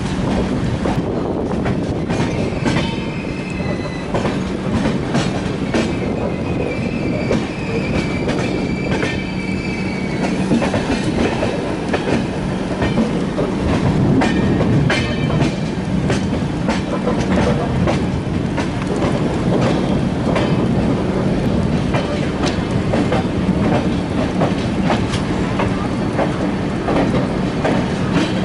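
Passenger express train running on the rails: a steady rumble with the wheels clicking over rail joints, and a high wheel squeal from about two seconds in that fades out around ten seconds in.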